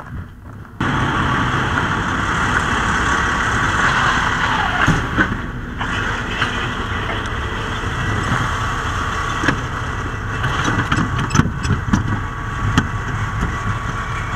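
Fire engine's diesel engine running loudly at close range, coming in abruptly about a second in, with scattered short knocks of gear and hands against the truck.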